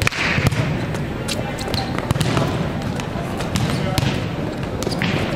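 Volleyballs being hit and passed in a large, echoing gym: a string of sharp smacks, the strongest near the start, over a steady murmur of many voices.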